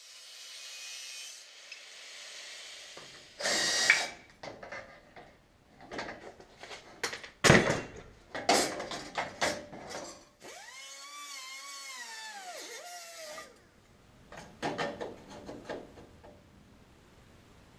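Hand work with tools: a hiss at first, then a run of sharp knocks and clatter, then a small power tool's motor whining for about three seconds, its pitch rising and then falling, and a few more knocks.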